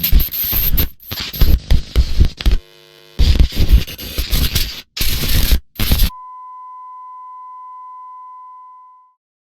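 Loud, choppy bursts of harsh static-like noise for about six seconds, broken by short gaps, then a single steady electronic tone that holds about three seconds and fades out.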